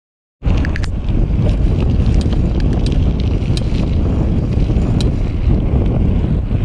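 Wind rushing over a camera microphone on a moving bicycle, with a low rumble from the ride and scattered light ticks. It starts abruptly about half a second in, after silence.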